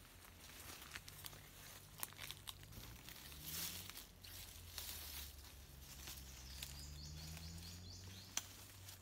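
Footsteps rustling and crunching through leafy undergrowth and dry leaf litter, with scattered twig snaps and a louder rustle about three and a half seconds in.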